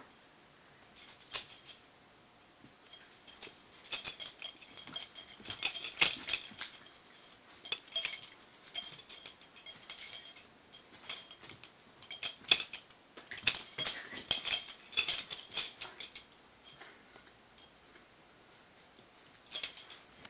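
Metal ID tags on a Shiba Inu's collar jangling and clinking in irregular bursts as the dog shakes her head and tugs on a rope toy. The jingling stops for a couple of seconds near the end, then gives one last short burst.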